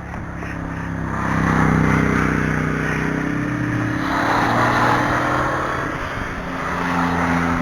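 Road traffic passing close by: engine hum and tyre noise swell and fade as vehicles go past, about three in succession.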